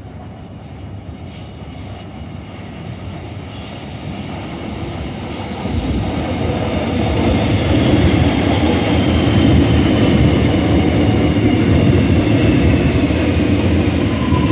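Metro Trains X'Trapolis electric suburban train approaching and running into the platform. It grows louder over the first six seconds, then settles into a steady rumble with a high whine that falls in pitch as the train slows.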